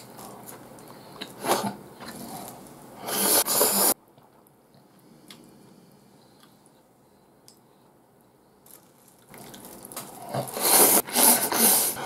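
A person slurping ramen noodles, with loud, wet bursts about three seconds in and a longer run from about ten seconds on, and a quiet stretch between.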